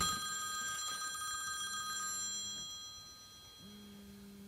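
A telephone ringing: a high, trilling ring that starts at once and fades out over about three seconds.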